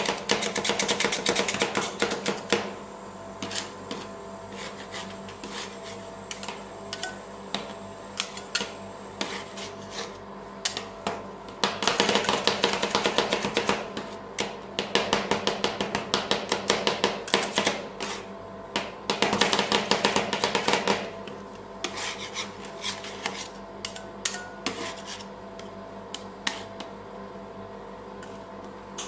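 Two metal spatulas chopping avocado on a steel ice-cream-roll cold plate: fast runs of metal clacking against the plate, at the start, again from about twelve to seventeen seconds in and around twenty seconds, with slower single taps in between, over a steady hum.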